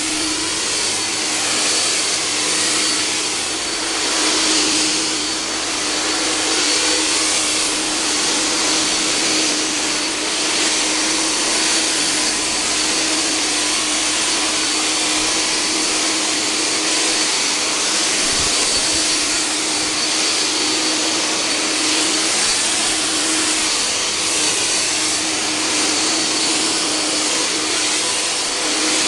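Electric cold-fog (ULV) generator running steadily while spraying insecticide solution as a fine mist: a constant motor whine over a rushing hiss of air.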